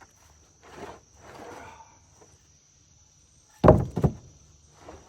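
Rough-sawn wooden boards knocking together twice, sharply, as a board is pulled off a stacked pile, after some faint scraping and rustling. A steady high insect drone runs underneath.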